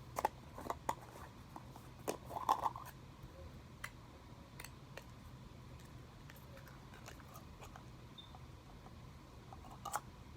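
Lava slime being opened and handled: scattered sharp clicks and sticky crackles, busiest in the first three seconds, then sparse and faint, with two more clicks near the end.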